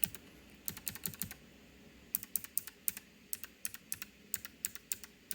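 Typing on a Keychron K1 mechanical keyboard with clicky blue Gateron switches. A quick run of keystrokes, a pause of about a second, then steady typing at about four to five keys a second.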